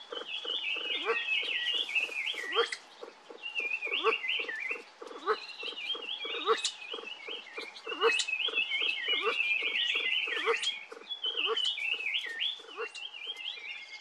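A feeding flock of kalij pheasants makes a low, rhythmic clucking about four times a second, with a busy twittering of higher bird calls over it.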